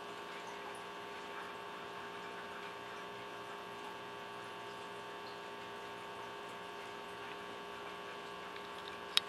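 Steady electric hum of a small circulating water pump, as in a pet drinking fountain, with water moving faintly. A single sharp click comes just before the end.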